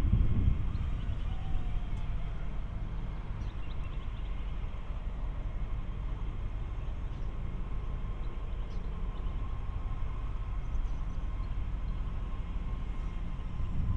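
Diesel-hauled Indian Pacific train running: a low, steady rumble with a thin steady whine above it, a little louder in the first half second.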